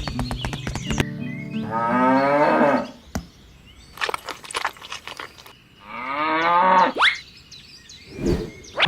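Cow mooing twice, each call about a second long, with a few clicks between the calls. Background music cuts off about a second in.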